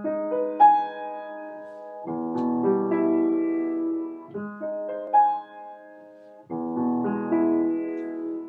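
Solo piano music: slow, sustained chords, a new chord struck about every two seconds and left to ring.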